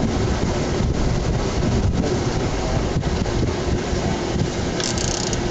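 Wind buffeting the microphone over the steady wash of ocean surf, with a brief hiss near the end.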